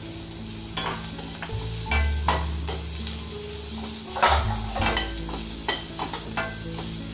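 A spatula scrapes and stirs onion and capsicum frying in oil in a stainless steel kadai. The scraping strokes come about every half second over a steady sizzle, and the loudest scrape comes a little past four seconds in.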